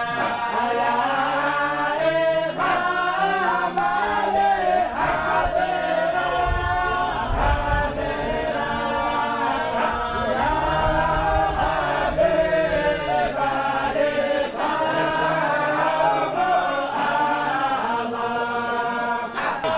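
A group of men's voices chanting together in one continuous religious chant, with held, wavering notes. A brief low rumble sounds under it about six to eight seconds in.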